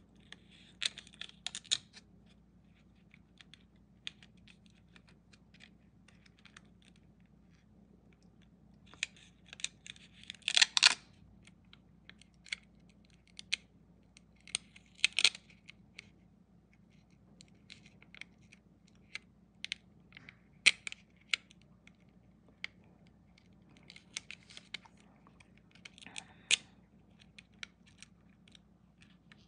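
Fingernails picking and scratching at the edge of a holographic film sticker inside a silicone mould, trying to lift its stubborn plastic backing: scattered small clicks and short crackly scrapes of thin film, coming in a few brief clusters.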